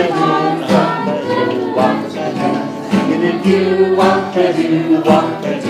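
Music: a group singing together to a strummed guitar.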